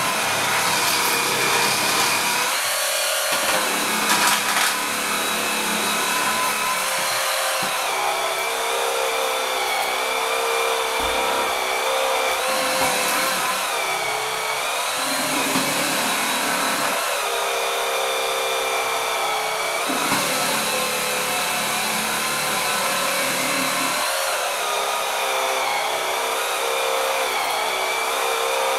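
JML Swivel Sweeper cordless battery sweeper running, its brush motor whining steadily as it is pushed back and forth, the pitch dipping and recovering every few seconds as the load on the brushes changes. A few sharp clicks about four seconds in.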